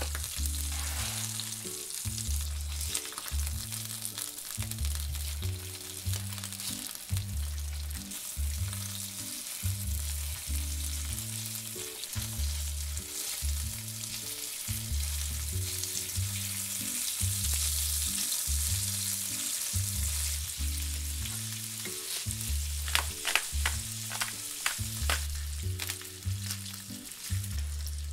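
Salmon pieces sizzling steadily in hot oil in a nonstick frying pan. Tongs click and scrape against the pan now and then, several times in quick succession near the end as the fish is broken up. A low bass line of background music runs underneath.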